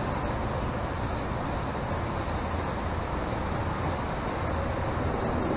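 Steady low rumble of highway traffic passing overhead, heard from inside a concrete tunnel under Interstate 81, even in level with no distinct events.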